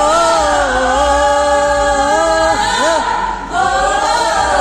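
Several young women singing loudly together, holding one long note for about two and a half seconds, breaking briefly, then holding another long note near the end.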